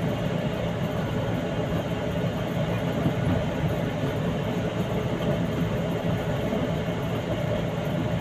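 Steady engine hum and road noise inside a truck cab cruising at an even speed, with no change in pitch.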